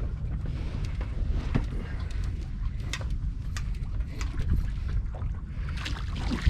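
Steady low rumble of boat and wind noise on the microphone, with scattered sharp clicks and knocks.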